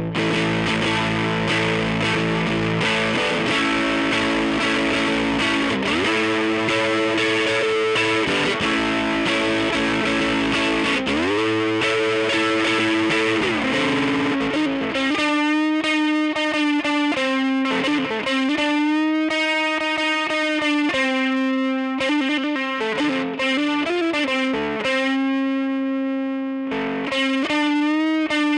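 Electric guitar played through a Phantom fx Sabbath Bliss distortion pedal: heavy held chords with a few slides in pitch, then from about halfway single sustained notes with bends and vibrato.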